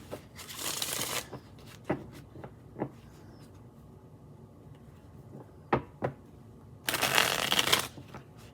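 A deck of tarot cards being shuffled in two short bursts of about a second each, with a few sharp clicks between them.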